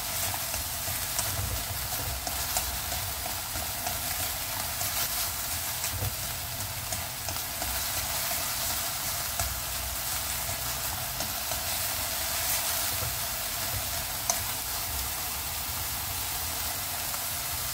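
Minced pork and wood ear mushrooms sizzling in a steel pan as they are stir-fried, with scattered scrapes and taps of the stirring utensil against the pan. The mixture is being fried until its liquid cooks off.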